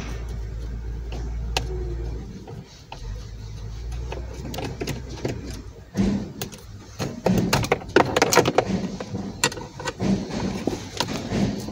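Small metallic clicks and scrapes of a screwdriver working at the screws and clips of a plastic lower dash panel, coming thick from about halfway in. A low steady rumble fills the first few seconds.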